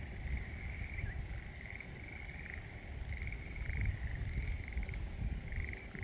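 Frogs calling in short, rapid pulsed trills, about one a second, over the steady rush of a small mountain stream and a low rumble.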